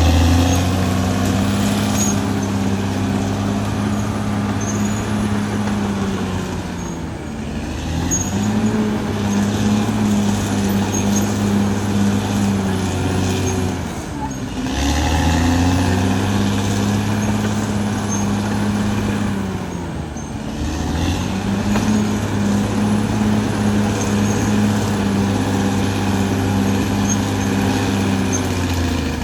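Caterpillar D6R XL bulldozer's diesel engine running steadily. Its pitch dips briefly and recovers about every six to seven seconds, four times in all.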